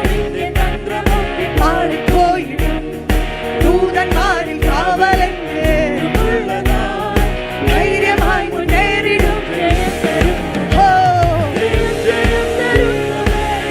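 Malayalam Christian worship song: a singer over a band with a steady drum beat.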